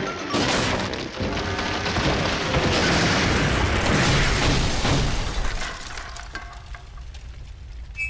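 Cartoon crash sound effect of a large tree falling onto a house: a long, loud crash and rumble of smashing debris that dies away after about five seconds.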